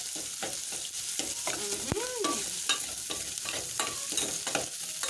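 Onions, garlic, ginger and green pepper frying in a little oil in a cooking pot, a steady sizzle with repeated scrapes of a spoon stirring the pot. A brief squeak rises and falls in pitch about two seconds in.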